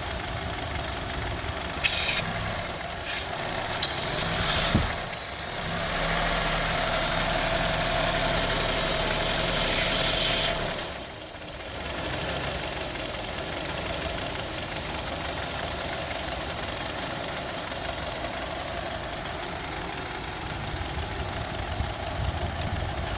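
Honda CR-V's 2.4-litre four-cylinder engine idling roughly and shaking, the sign of the unstable rough idle being diagnosed. From about six to ten seconds in it is louder, with a hiss, and it drops back abruptly.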